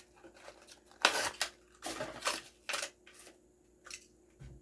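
Plastic blister pack and card backing of a die-cast toy car crackling and tearing by hand in several short bursts as the package is opened.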